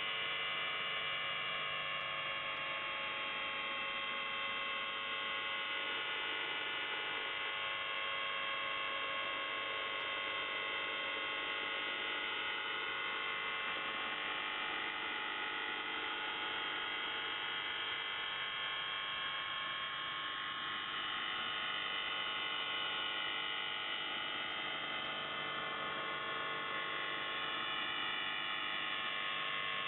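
Shortwave receiver in upper sideband on 4625 kHz giving a dense, steady mix of many whistle tones, some slowly wavering in pitch, over static: a wide interfering signal filling the channel.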